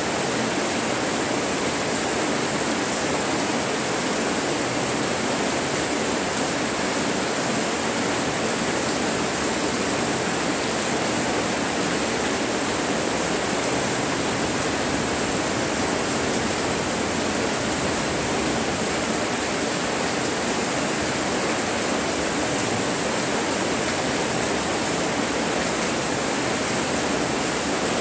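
Rain falling steadily, an even hiss with no thunder.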